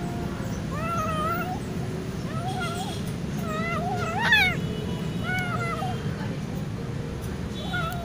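Kitten mewing repeatedly, about seven short high mews that rise and fall, the loudest about four seconds in, over a steady low background noise.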